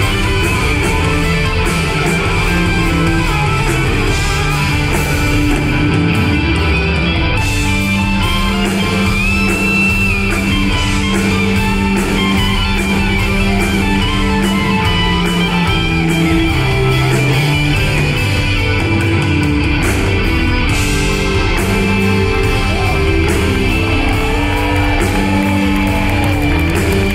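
A progressive rock band playing live, with electric guitar over bass guitar and drums; the guitar bends one note about ten seconds in.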